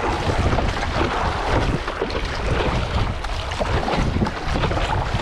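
Wind buffeting the microphone over water splashing and slapping against the nose of a stand-up paddleboard as it is paddled through choppy sea.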